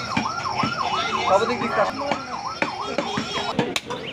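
A siren wailing in a fast up-and-down yelp, about three sweeps a second, which cuts off about three and a half seconds in. Knife knocks on a wooden chopping block are heard alongside it.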